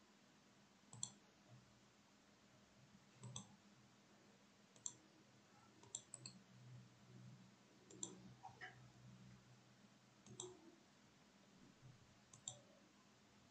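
Faint computer mouse clicks: about eight single clicks, one to two seconds apart, with a pair close together about six seconds in, over a low hum.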